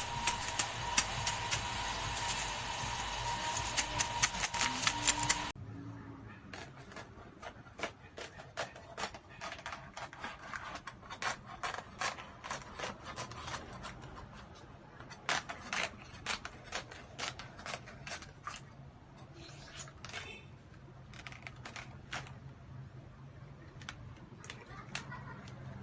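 Crisp roast pig (lechon) skin crackling. About five seconds of dense, sharp crackles, then the sound drops off suddenly to quieter, scattered crackles and taps.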